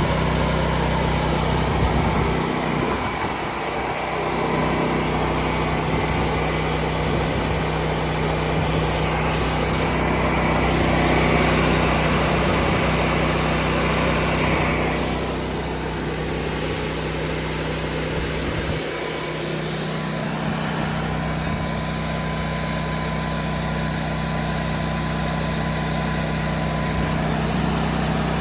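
Large Honda generator running at a steady speed, a constant engine hum that does not change pitch.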